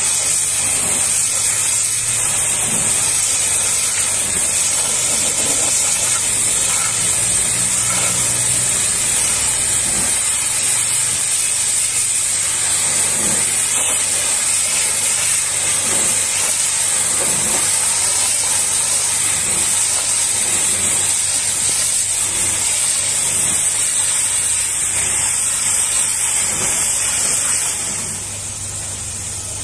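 High-pressure washer jet hissing steadily as the lance blasts water against the steel rear door of a dump truck trailer, with a low steady hum underneath. The hiss drops away near the end.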